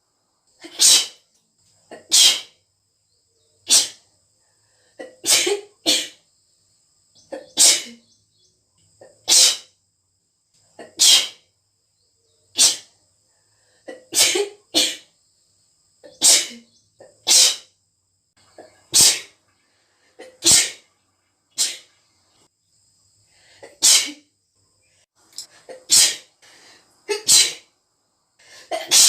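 A girl sneezing over and over: about twenty strong, wet sneezes in quick succession, one every second or two, each with a short intake of breath before it.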